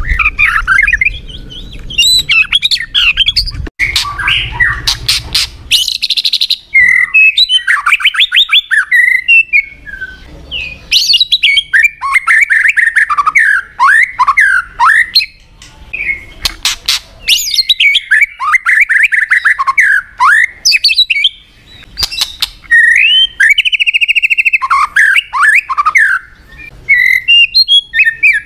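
White-rumped shama singing a fast, varied song of whistled phrases, rattling trills and sharp clicks, one phrase after another with only short pauses.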